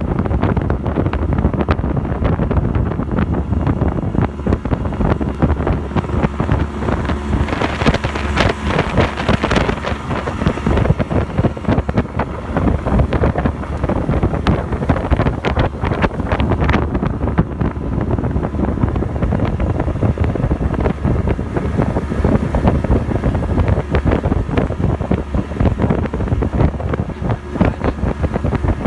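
Wind buffeting the phone's microphone as a small fishing boat runs across open water, with a steady low hum of the boat's motor underneath.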